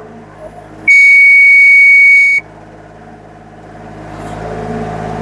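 Genie Z45 FE hybrid boom lift running at its ground controls: a loud, steady high-pitched electronic beep sounds for about a second and a half, then the machine's lower hum builds and grows louder over the next couple of seconds as a boom function is operated.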